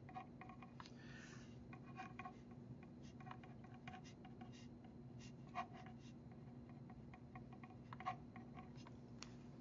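Ballpoint pen writing on paper: faint, short scratching strokes and ticks as letters and symbols are drawn, over a low steady hum.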